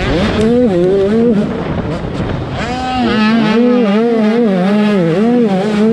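Two-stroke 85cc motocross bike engine revving hard, its pitch rising and falling as the throttle is worked, about twice a second from about three seconds in. Wind buffets the bike-mounted microphone.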